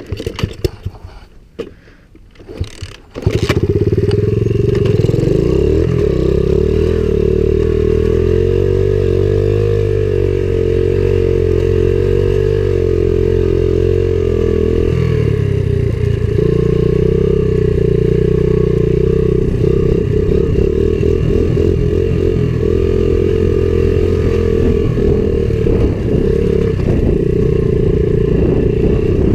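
Coolster 70cc pit bike's small single-cylinder four-stroke engine, which cuts in abruptly about three seconds in after some clicking and clatter, then runs loud and steady as the bike is ridden, with its pitch dipping and changing about halfway through.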